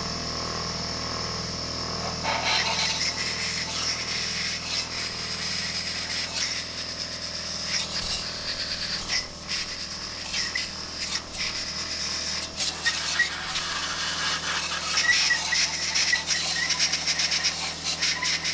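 A small electric air compressor running with a steady hum while a long-nozzle blow gun hisses in surging blasts, blowing water off a freshly washed engine block's cylinder walls to dry them.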